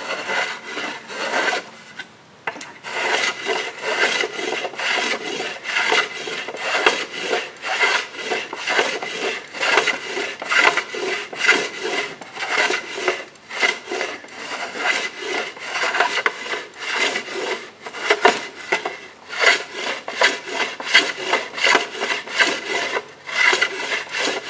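Quick back-and-forth strokes of a hand tool shaving wood off the end of a wooden plank, about two to three strokes a second with a short pause about two seconds in. The plank is being trimmed where it fits a little tight.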